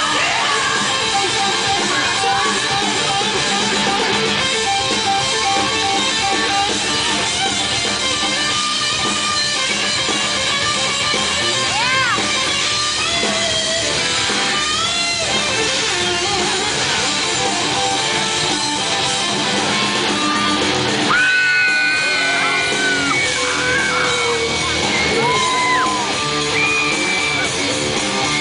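Live rock band playing loud: electric guitar over drums, with long held, bending high notes in the second half.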